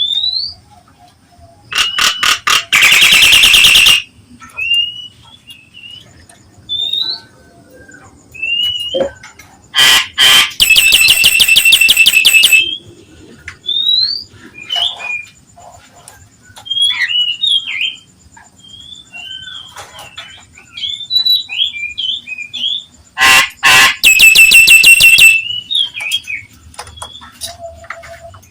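Nias hill myna calling: short whistled notes sliding up and down. They are broken three times by a loud, harsh, rasping call lasting about two seconds, the first about two seconds in, the second about ten seconds in and the last near the end.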